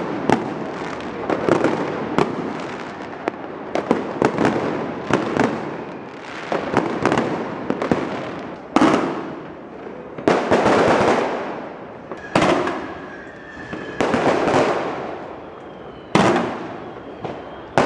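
Fireworks and firecrackers going off: a dense run of bangs and crackling, then from about halfway single loud booms every second and a half to two seconds, each echoing away.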